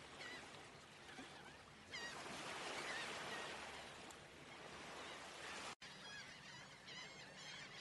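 Birds calling with short repeated chirps over a steady outdoor hiss; the hiss swells for a few seconds about two seconds in, and the sound cuts out for an instant a little before the end, after which a quick run of chirps follows.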